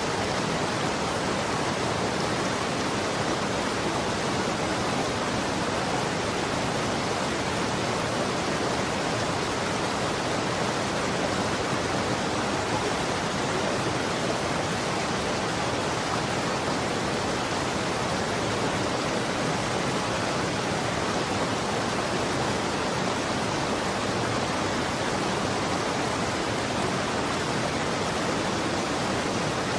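Running water: a steady, even rushing flow with no let-up or change.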